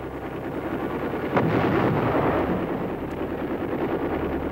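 An explosion: a sharp crack about a second and a half in, then a long rolling rumble, over a steady low drone.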